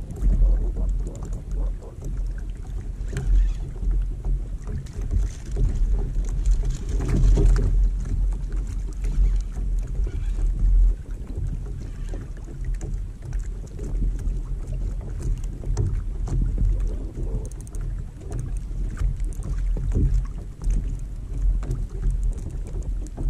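Wind rumbling on the microphone in gusts, over water slapping against a plastic fishing kayak's hull, with a few light knocks.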